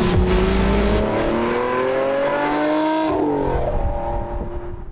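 A car engine accelerating hard, rising in pitch, dropping suddenly about three seconds in as it shifts up, then fading out near the end.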